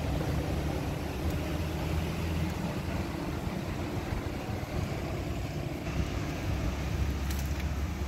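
Steady low hum of machinery running, with a few light clicks near the end.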